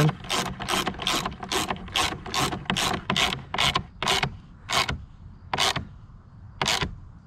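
Hand ratchet wrench clicking as it turns a bolt to run a lock nut down on a kayak stern mount: a quick run of about three clicks a second, then slower, spaced-out clicks after about four seconds as the nut is snugged down.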